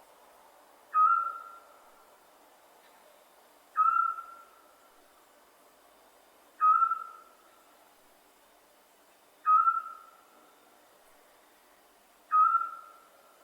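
Scops owl giving its single short, clear whistled hoot, repeated at an even pace about every three seconds, five times in all, over a faint background hiss.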